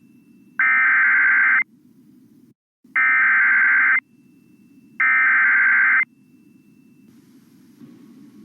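Emergency Alert System SAME header: three identical bursts of warbling digital data tone, each about a second long and about a second apart, the coded header that opens an emergency alert broadcast. A faint low hum runs underneath.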